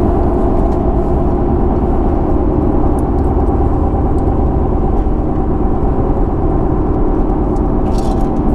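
A vehicle driving down the road: a steady engine hum with low road rumble.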